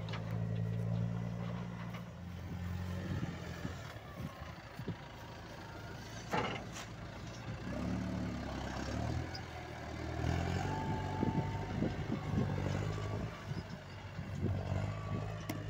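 Massey Ferguson 5455 tractor's four-cylinder diesel engine running under changing revs: the engine note drops about two seconds in and climbs again around eight and ten seconds. Scattered clanks and knocks sound over it, with one sharp knock about six seconds in.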